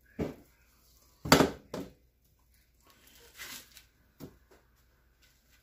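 Hands breading pork loin in a bowl of breadcrumbs: a handful of short soft thumps and knocks as the meat is pressed and patted and the bowl and metal pan are touched, the loudest about a second in.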